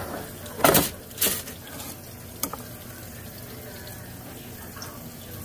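Pork chops sizzling in an air fryer as a steady hiss. About half a second in there are two sharp knocks roughly half a second apart, and a lighter click follows a little over a second later.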